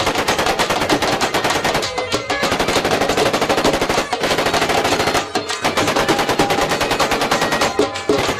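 Long bursts of rapid automatic gunfire, about ten shots a second, broken by short pauses about two, four and five seconds in.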